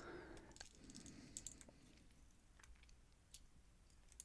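Near silence with a few faint, scattered clicks: small metal parts of a pin-tumbler lock being handled as its driver pins and springs are taken out of the bible.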